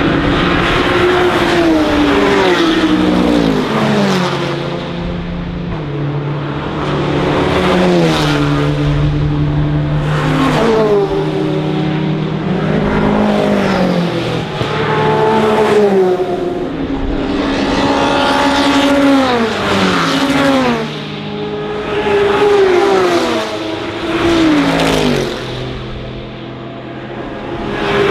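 Racing cars passing close one after another. Each engine note swells as the car approaches and drops in pitch as it goes by, in a steady stream of passes every two to three seconds.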